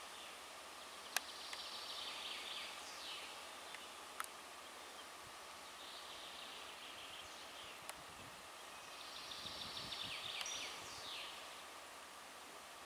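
A songbird sings repeated short trilled phrases that drop in pitch at the end, two of them louder than the rest, over quiet outdoor ambience with a faint steady high hum. Three sharp clicks stand out.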